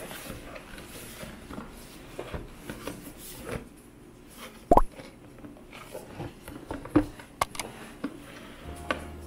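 Cardboard product box handled and turned over in the hands, with soft rustling and scattered taps and knocks; the loudest knock comes about halfway through.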